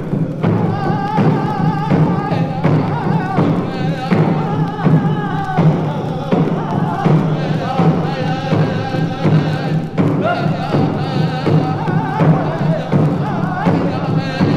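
Background music: a steady drum beat under a wavering, sustained melody line.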